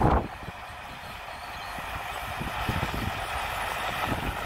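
Small crawler bulldozer's diesel engine running under load with its steel tracks clattering as it pushes a pile of soil and rocks, growing slightly louder as it comes closer. A short loud thump right at the start.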